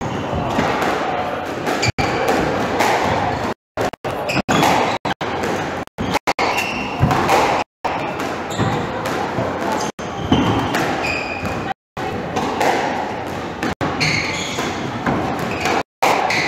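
Squash rally: the ball smacking off rackets and the court walls, with shoes squeaking short and high on the wooden floor. The audio cuts out completely for a moment several times.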